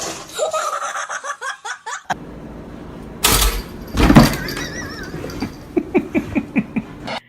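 Person laughing, ending in a run of quick pulses of laughter, with a loud noisy burst and pitched cries earlier on from other clips.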